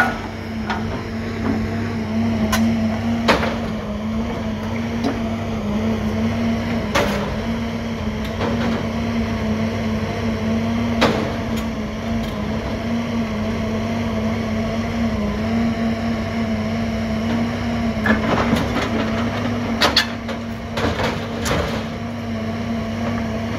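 Heavy equipment's diesel engine running steadily under a grapple as it tears the boom off a scrapped Timbco feller buncher. Scattered heavy metal clanks and knocks come from the steel being wrenched loose, with a run of them near the end.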